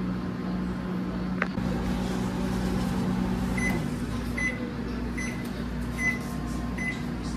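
Microwave oven running with a steady hum. About halfway through the hum changes as the cooking cycle ends, and the oven beeps five times, evenly spaced a little under a second apart, signalling the corn is done.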